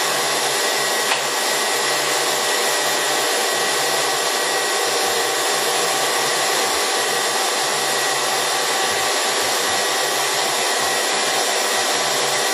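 Warner & Swasey M4630 No. 3 ram-type turret lathe running under power: a steady whir with a thin, constant high whine, and a single small click about a second in.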